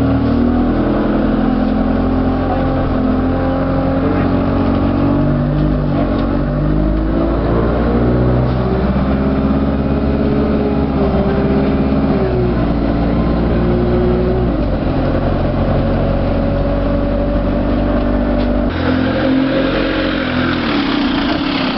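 Alexander Dennis Enviro200 single-deck bus running on the road. Its engine note steps up and down as the gearbox works through the gears, with a sudden change in the sound near the end.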